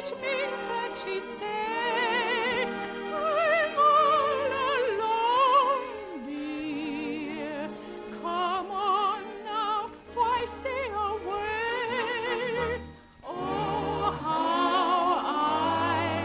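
Operetta singing: a trained voice with wide vibrato on held notes over an orchestra, with a falling glide about six seconds in and a short break before the singing resumes near the end.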